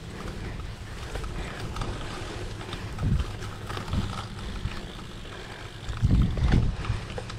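Wind rumbling on an action camera's microphone outdoors, with louder low bumps about three and four seconds in and the loudest cluster around six seconds in.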